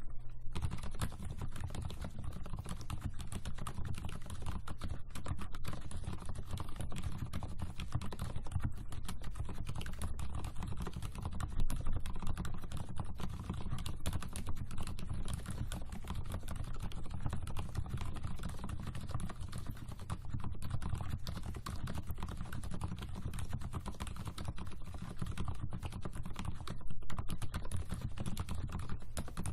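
Continuous fast typing on an Mstone Groove mechanical keyboard with fully hand-lubricated silent red (low-noise linear) switches. The keystrokes run in a dense, unbroken stream.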